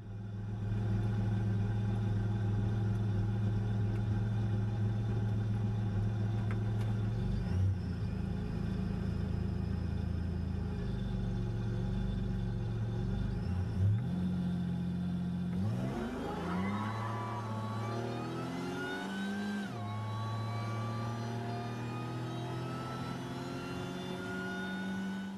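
Car engine running steadily, then accelerating: its pitch climbs, drops sharply once at a gear change, and climbs again.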